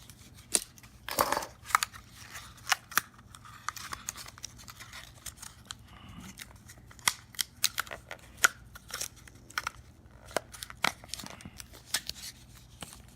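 Plastic packaging of a laptop memory module being handled and opened: irregular sharp crinkles, clicks and snaps, a few of them louder.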